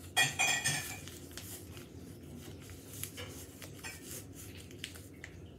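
Paper crinkling and rustling as it is handled while pillow stuffing is pushed into a taped paper pocket, loudest in the first second, then fainter scattered rustles and small clicks.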